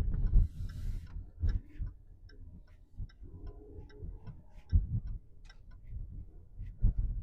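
Car turn-signal indicator ticking steadily inside the cabin, over low rumble and a few dull thumps.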